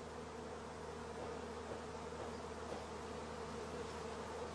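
Many honeybees flying around a hive entrance, a faint, steady buzzing drone.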